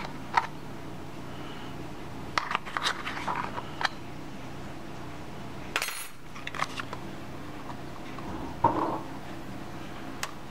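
Scattered light clinks and taps of a measuring spoon against a spice container and the crock while spices are measured onto raw chicken in a slow cooker. A short rustle comes about six seconds in and a duller knock near nine seconds, over a steady low hum.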